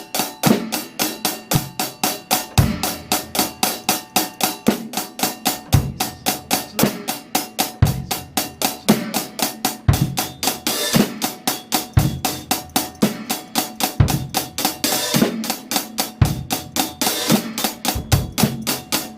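Drum kit playing a steady groove: closed hi-hat in sixteenth notes over bass drum and snare, with the hi-hat opened briefly a couple of times.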